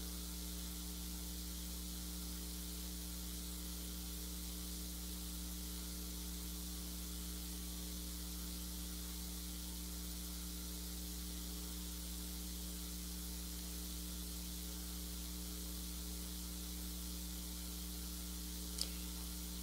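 Steady low electrical hum with a layer of hiss: the recording's noise floor. A faint tick near the end.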